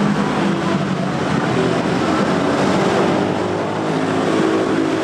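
Steady street traffic noise: motor vehicles running past on the road, a continuous wash of engine and tyre noise.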